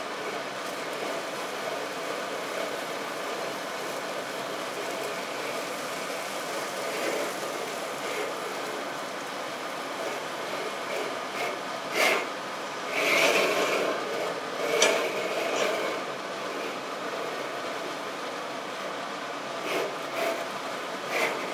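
Egg and dumpling frying in hot oil in a pan, sizzling steadily. A spatula scrapes and clatters against the pan a few times just past halfway through, and again briefly near the end.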